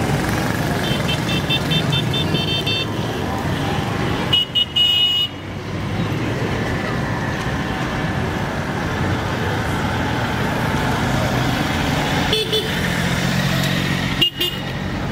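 Steady rumble of running vehicle engines, with a quick run of short high-pitched beeps about a second in and a few single high toots later on.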